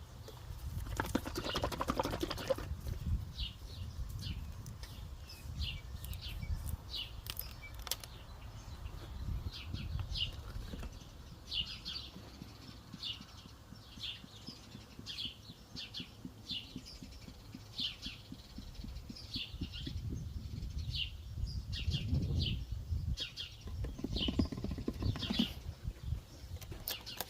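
A small bird chirping over and over, short high chirps about once or twice a second, over a steady low rumble.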